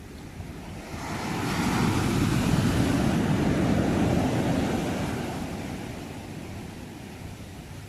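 A sea wave breaking and washing in, swelling up over about a second and a half and then fading away over the next few seconds.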